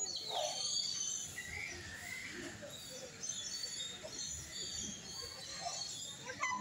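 Small birds chirping: many short, high chirps, with a wavering call about a second and a half in.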